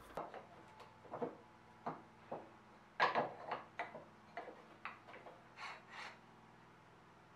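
Light wooden clicks, taps and scrapes of hand work: a scabbard chisel paring a channel in a cocobolo handle half, then the two cocobolo halves and the steel blade set down and fitted together on a wooden workbench, with a slightly louder cluster of knocks about three seconds in.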